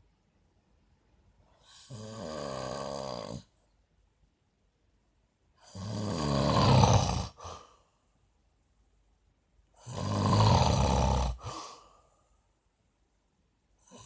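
A man snoring: three loud, rasping snores about four seconds apart, each lasting a second or two, with a short softer puff after the second and third. The first snore is quieter than the two that follow.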